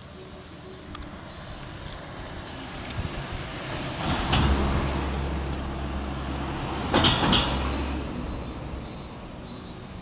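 A motor vehicle passing close by on the road: its engine rumble builds over the first four seconds, holds, and fades after about eight. A brief, loud rush of noise comes about seven seconds in.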